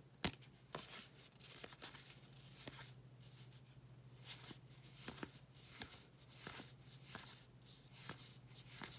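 Baseball cards slid off a stack one at a time from hand to hand: faint paper swishes and light clicks every half second or so, the sharpest click near the start, over a steady low hum.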